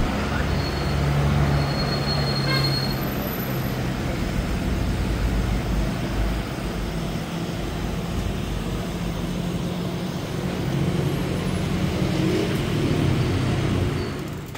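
Motor vehicle on the move: a steady low engine hum with road noise.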